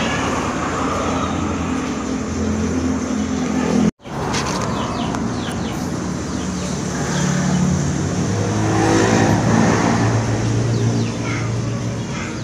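A motor vehicle engine running in the background, its pitch drifting up and down, cut off for an instant about four seconds in.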